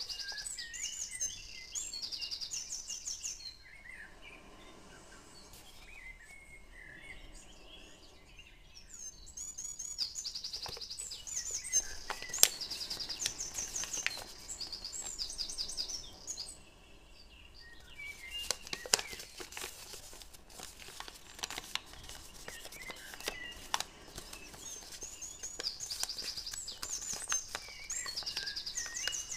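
Birds chirping in quick, high repeated trills, in three spells with quieter gaps between. Soft crinkles and clicks of origami paper being creased and folded by hand come through underneath.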